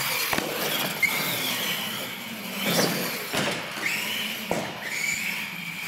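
R/C monster truck's motor whining, rising and falling in pitch as the throttle is worked, with sharp knocks of the truck landing and bouncing on a hard floor about half a second in, around one second, and twice more later.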